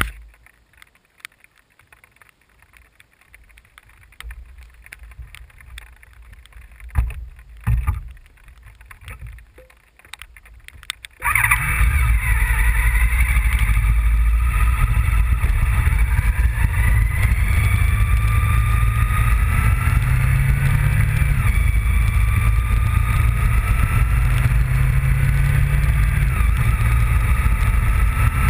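Honda VFR750 motorcycle's V4 engine running at speed: a loud, steady rumble that comes in suddenly about eleven seconds in, its pitch climbing slowly. Before that, only faint rumbling and a few knocks.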